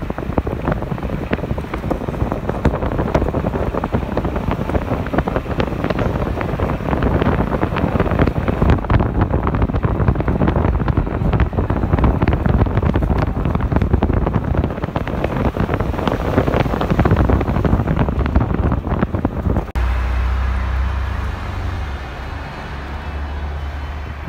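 Wind buffeting the microphone, with road and engine noise, filmed from a car moving at speed. About three-quarters of the way through, the buffeting cuts off suddenly, leaving a steady low rumble of the car.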